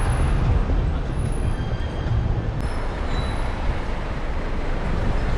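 Busy city-street traffic noise with a double-decker bus running close by, over a low, fluttering rumble of wind on the microphone.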